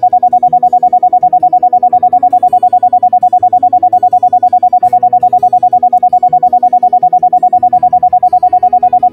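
A loud steady single-pitch tone pulsing on and off in a fast, even beat, over quiet background music of slow sustained notes, as played in a sound-therapy track.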